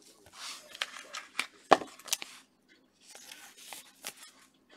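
Gloved hands tearing open and crinkling the plastic wrapper of a trading-card pack: crackling rustles with sharp clicks, in two stretches, the second shorter, with a brief pause between them.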